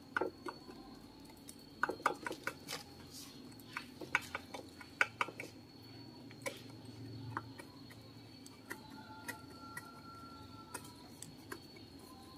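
Short clicks, taps and scrapes as hands and a small stick press potting soil into a glazed ceramic bonsai pot and around the roots. The clicks come in a busy cluster in the first half and grow sparse later, over a faint steady high-pitched tone.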